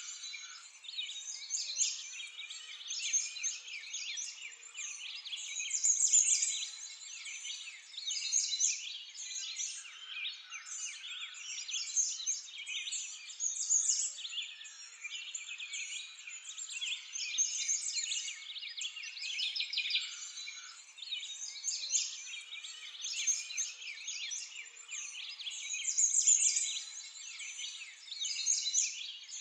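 Dense chorus of many small birds chirping and singing all at once, a continuous busy outdoor birdsong ambience.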